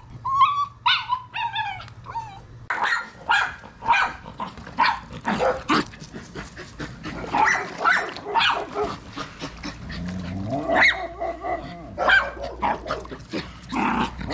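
Miniature schnauzer whining a few times, then barking and yipping in short, high barks over and over.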